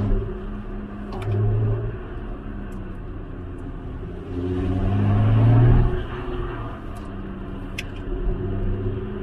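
Lotus Exige engine running with three swells in loudness under the throttle. The longest builds for about a second and a half in the middle and cuts off abruptly. A few sharp pops sound about a second in and near the end.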